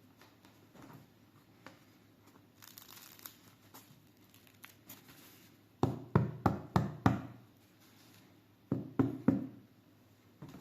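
Freshly baked bread: faint crackling of the crust, then about five loud knocks on the loaf in quick succession and three more a couple of seconds later.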